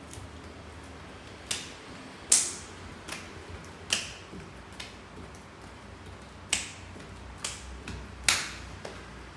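A child's hands clapping overhead during jumping jacks: about nine sharp, separate claps at uneven intervals, the loudest about two seconds in and again near the end.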